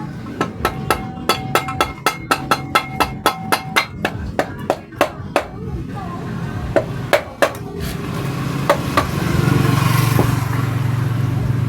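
A hammer striking metal in a quick series of ringing blows, about four a second for some five seconds, then a few single knocks. A steady low rumble builds near the end.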